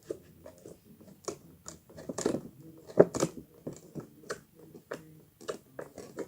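Slime being squeezed and pressed by hand, making irregular wet clicks and pops, the loudest about three seconds in.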